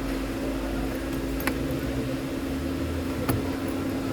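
Small plastic clicks from the ignition key switch being pressed back into place, twice, over a steady mechanical hum.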